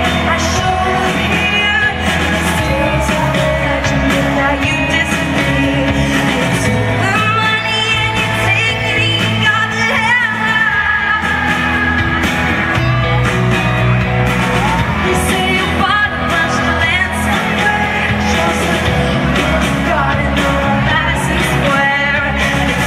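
Live pop song from a stadium stage: a female lead vocal sung over a full band with steady bass notes, recorded from the audience.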